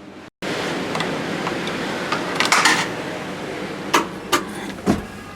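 Steady clattery background noise with a few sharp knocks near the end.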